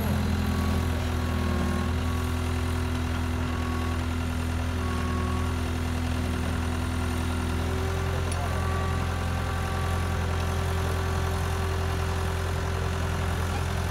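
Diesel engine of a Cat 297C compact track loader running steadily at a low, even speed, close by.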